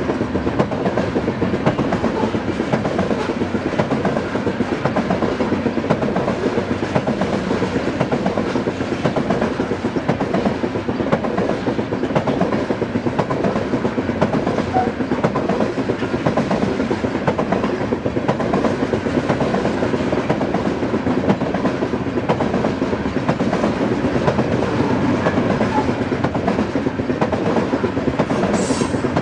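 Coal train's gondola cars rolling steadily past: a continuous rumble of steel wheels on rail with rapid clickety-clack from the wheels.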